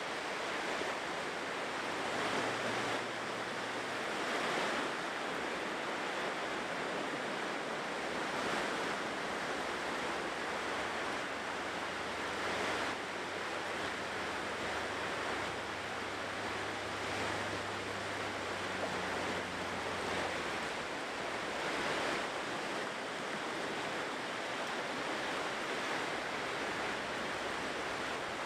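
Ocean surf breaking and washing onto a shore: a continuous rush that swells and eases as each wave comes in.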